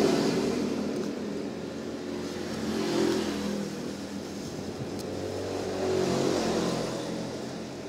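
A motor vehicle engine runs and gradually fades away, swelling briefly twice, about three and six seconds in. The pages of a paperback comic rustle faintly as they are turned.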